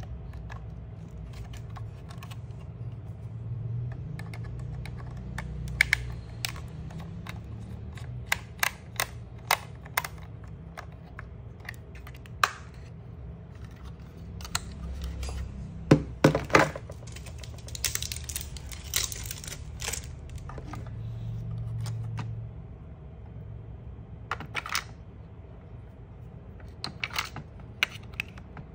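Irregular plastic clicks and small rattles from an RC car transmitter being turned over in the hands and its battery cover worked with a finger, loudest in a cluster about halfway through. A steady low hum runs underneath.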